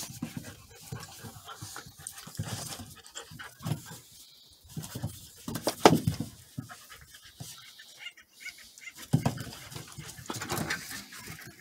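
Two Border Collie puppies play-fighting: growling and panting in irregular bursts, with paws scuffling on wooden deck boards and one louder cry about halfway through.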